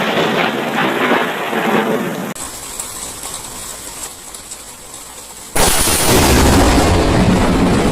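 Close lightning strikes: the crash of one strike dies away into a rain-like hiss, then a second sudden, loud thunderclap breaks in about five and a half seconds in, with a heavy low rumble.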